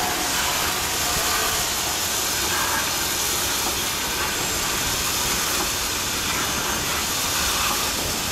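Water jet from a hose nozzle spraying onto the metal tubes and top plate of a honeycomb electrostatic-precipitator electric-field module: a steady hiss of spray and spattering water.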